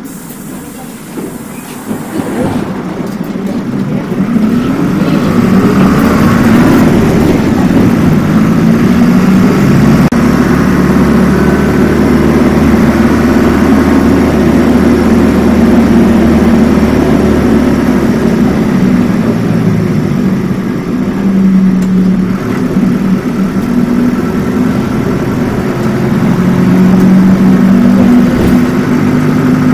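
Bus engine heard from inside the cabin as the bus pulls away. It grows louder over the first few seconds, then runs loud and steady, its pitch shifting up and down as the bus goes through the gears and picks up speed.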